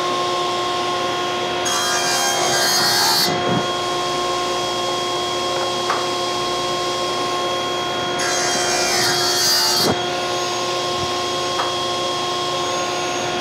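SawStop table saw running steadily, its blade cutting through a wooden board twice, each crosscut lasting about a second and a half, the two about six seconds apart.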